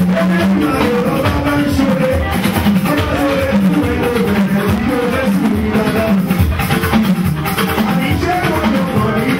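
Music with a singing voice over drums and percussion, playing steadily.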